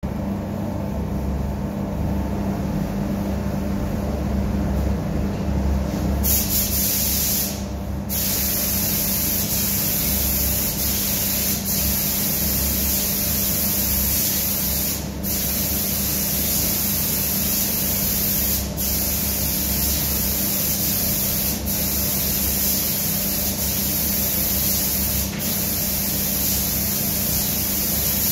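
Steady low hum of a spray booth's extraction blower; about six seconds in, a compressed-air gravity-feed spray gun starts hissing as it sprays lacquer, cutting off briefly several times when the trigger is let go.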